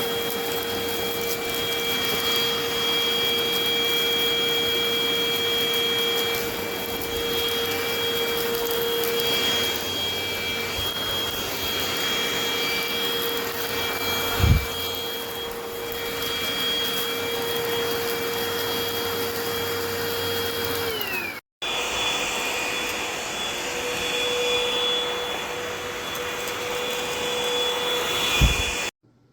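Eureka RapidClean Pro cordless stick vacuum running with a steady motor whine and suction hiss, with a single thump about halfway. The whine falls in pitch as the motor winds down, stops briefly, then runs steadily again until it stops near the end.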